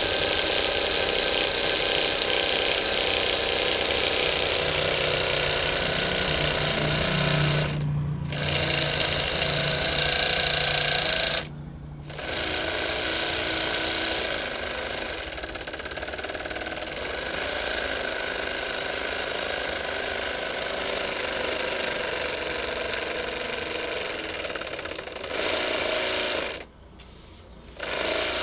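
Homemade three-cylinder single-acting oscillating steam engine running fast on steam from a gas-fired boiler: a rapid, even mechanical clatter over a steady hiss. The sound drops out briefly three times.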